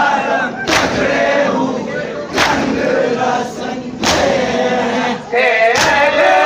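A large crowd of Shia mourners beating their chests in unison (matam), four loud slaps about a second and a half to two seconds apart, over men chanting a mourning lament together.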